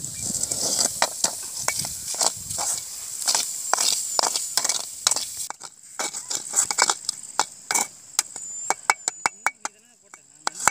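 Steel ladle stirring and scraping crumbly goat blood fry in a metal kadai, clinking against the pan sides in quick irregular knocks. A soft frying sizzle runs underneath and fades about halfway through.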